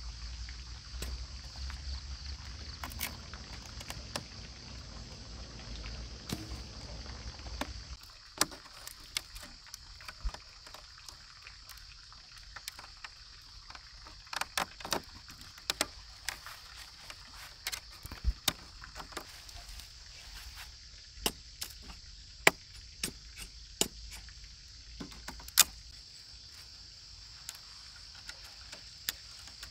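Bamboo strips clicking and snapping as a conical bamboo fish trap is woven by hand: scattered sharp clicks, more frequent in the second half. Underneath there is a steady high-pitched hum, with a low rumble during the first several seconds.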